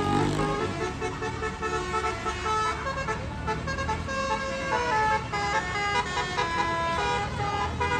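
Basuri (telolet) musical air horn on a bus playing a quick melody of shifting notes, over the low rumble of the bus's engine.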